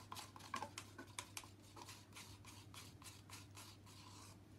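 Faint, quick clicks and crinkles of gloved hands handling thin plastic cups while pouring paint, thinning out after about three seconds, over a low steady hum.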